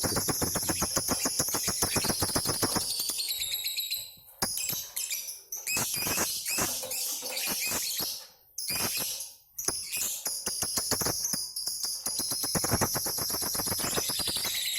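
Lovebirds ngekek: long, rapid, high-pitched chattering trills from several birds together, broken by a few short pauses.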